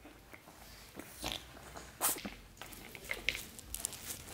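Shih Tzu puppy chewing and mouthing a plastic chew toy, with irregular small clicks and scuffs, the loudest about two seconds in.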